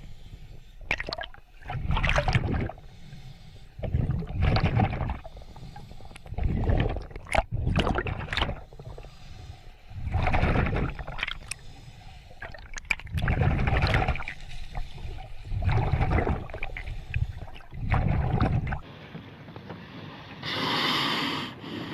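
Sea water surging and splashing around a small boat in repeated rushes about every two seconds, with a low rumble, then a hissing rush of about a second and a half near the end.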